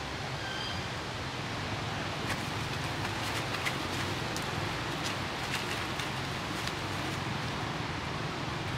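Steady outdoor background hiss with scattered light crackles, and a few faint short high chirps about half a second in.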